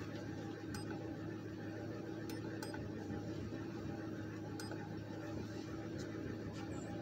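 Ford Crown Victoria's 4.6-litre V8 idling steadily, heard from inside the cabin, with a cylinder 3 misfire (code P0303) that persists after new ignition coils; the owner suspects the spark plug.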